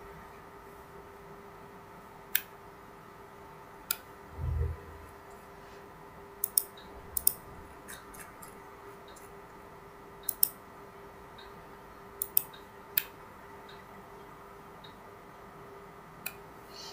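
Computer mouse clicks, single and in quick pairs, scattered over a faint steady hum. A short low thump comes about four and a half seconds in.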